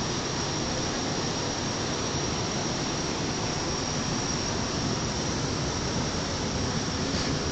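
A steady, even hiss with a faint high-pitched whine running through it.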